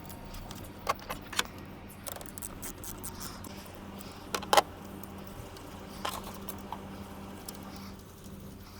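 A few scattered light metallic clicks and clinks, with a louder pair about halfway through, over a faint steady hum.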